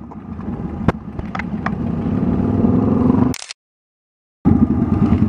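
Motorcycle engine running, getting gradually louder over about three seconds, with a few sharp clicks over it. It cuts off abruptly; after about a second of silence, engine sound starts again near the end.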